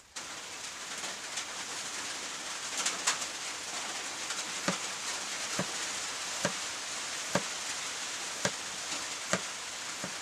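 Heavy rain falling steadily, with water dripping onto a hard surface about once a second.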